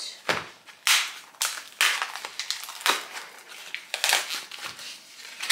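Clear plastic film on a supermarket meat tray crinkling and crackling in irregular rustles as it is pulled open by hand.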